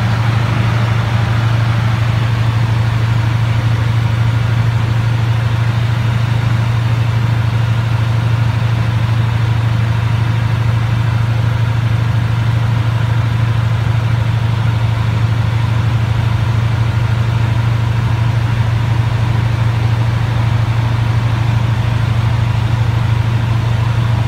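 Light aircraft's engine and propeller droning steadily, heard from inside the cockpit as a loud, even low hum.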